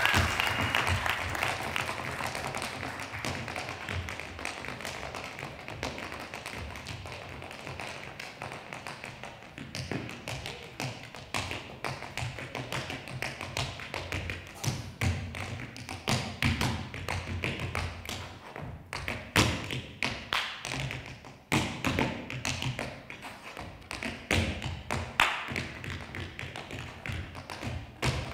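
Tap shoes striking a stage floor in unaccompanied improvised tap dancing: rhythmic runs of sharp metal taps and heavier stamps, sparse at first and much denser from about ten seconds in.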